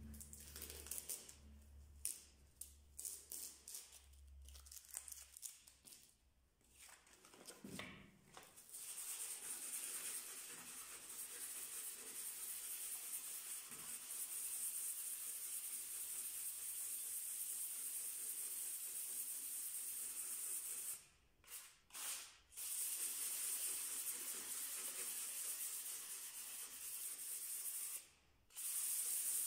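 Adhesive tape being pulled off its roll in short rips, then an aerosol can of spray varnish hissing steadily, with three brief pauses in the spray in the second half.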